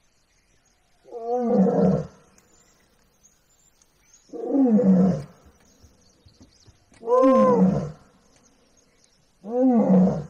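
Asiatic lion roaring four times, each call about a second long with a rise and fall in pitch, about three seconds apart; the calls echo.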